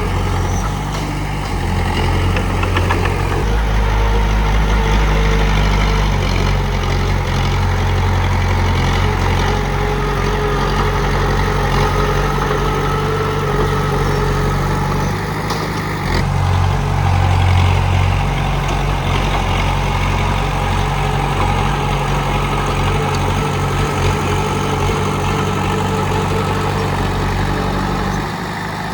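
Komatsu D31P bulldozer's diesel engine running steadily, its low note shifting up and down several times.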